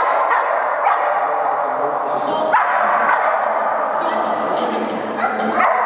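Dog barking in a large echoing hall: a few sharp barks, about a second in, midway and near the end, over a steady din of background noise.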